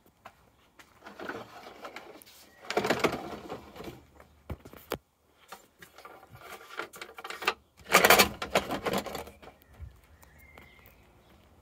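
Handling noise of a skim-board table on a cranked aluminium leg being swung round and tipped up for storage. Two stretches of rustling and knocking, the second the loudest, with a few sharp clicks between them.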